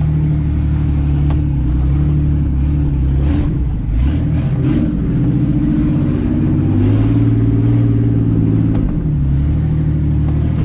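Off-road 4x4's engine running under load on a dirt track, its pitch dropping and rising a few times as it revs, with a few short knocks around the middle.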